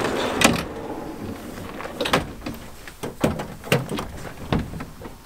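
Aluminium tool-case kitchen box being handled: a sliding, scraping noise as it is pulled out, then a handful of sharp metallic clunks and knocks as its lid is opened and lifted.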